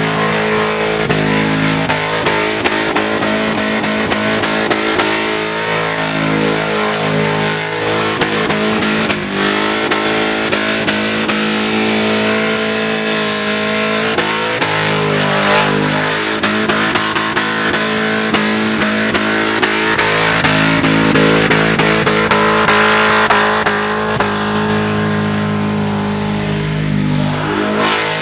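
Holden Commodore's LS1 V8 held at high revs during a burnout, with the tyres spinning. Guitar-driven rock music plays over it.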